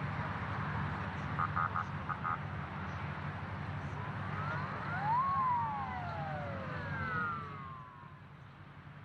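Steady low hum of outdoor launch-pad ambience, with short pulsed beeps about a second and a half in. Several overlapping siren-like wails then rise and fall between about four and seven and a half seconds in.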